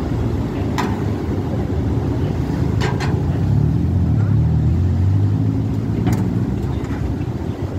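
Fiat Uno Turbo cars' turbocharged four-cylinder engines running as they drive off a ferry's car deck at low speed. The engine note grows loudest about four seconds in, as the second car passes close, and a few short sharp clacks sound along the way.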